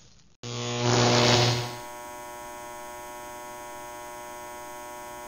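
Logo sting sound effect: a rushing swell about half a second in that dies away by about two seconds, then a steady electrical hum made of many even tones.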